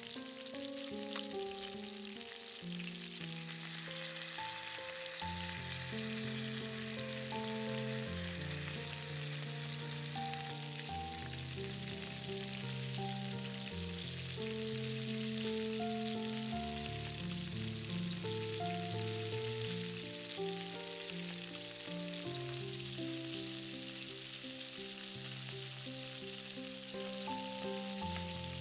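Steady crackling sizzle, like food frying in a pan, under slow background music with held notes.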